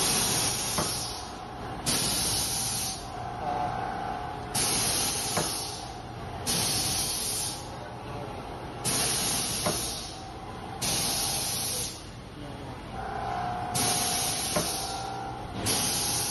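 Pneumatic press of a semi-automatic paper boat-tray forming machine cycling: a sharp hiss of released air about every two seconds, eight times in all, with a short click from the ram and die between hisses as each tray is pressed.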